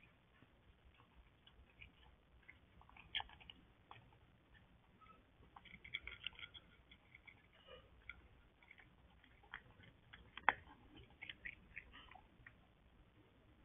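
A cat eating from a bowl: faint, irregular crunching and clicking as it chews, with a sharper click about three seconds in and the loudest one about ten seconds in.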